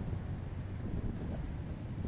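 Steady rumble of wind on the microphone of a moving motorbike, mixed with the running engines of the motorbikes and cars of the traffic around it.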